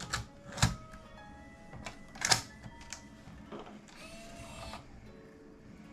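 Video 8 camcorder taking a cassette: two sharp clicks as the tape goes in and the compartment is pushed shut, then the loading mechanism's motor whirring briefly about two-thirds of the way through.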